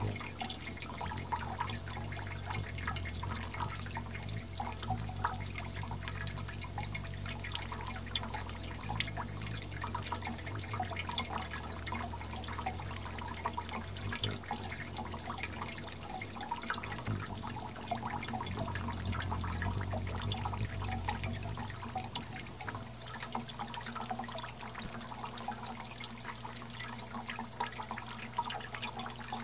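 Water jets of a small hummingbird fountain trickling and splashing, with a steady patter of falling drops. A low hum runs underneath and shifts about twenty-two seconds in.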